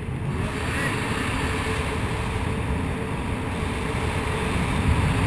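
Freefall wind rushing over a GoPro's microphone: a loud, steady, deep buffeting.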